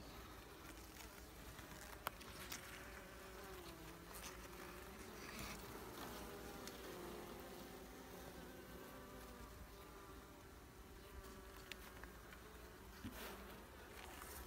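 Honeybees buzzing faintly around an opened hive, several wavering buzzes overlapping, with a single sharp click about two seconds in.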